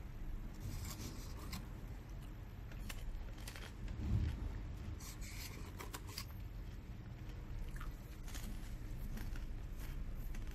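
Dry popcorn rustling and crackling as a hand rummages in a paper popcorn tub, with scattered crinkles and clicks of the tub being handled and a dull bump about four seconds in.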